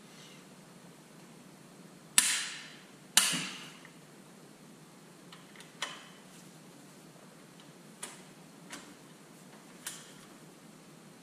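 Sharp metallic clicks from a torque wrench on the cylinder head bolts of a Detroit Diesel 3-53T as the head is torqued down. Two loud clicks come about a second apart, each ringing briefly, followed by four fainter clicks.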